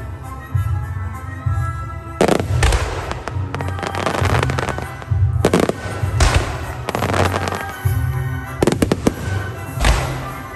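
Aerial fireworks shells bursting one after another, about eight sharp bangs over ten seconds with crackling stars between them, and music underneath.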